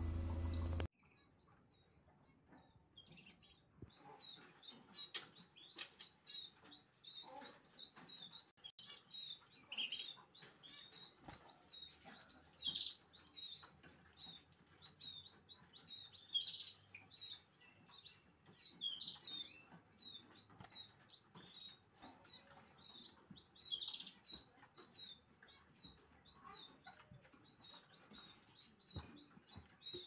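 A low hum cuts off about a second in; after a short quiet, a domestic canary chirps over and over in short high notes, about two or three a second.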